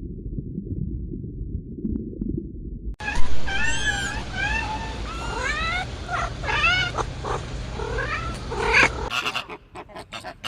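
Several animals giving high squealing calls that rise and fall, overlapping one another, after about three seconds of a muffled low sound; the calls stop abruptly near the end and a different animal sound with short sharp strokes begins.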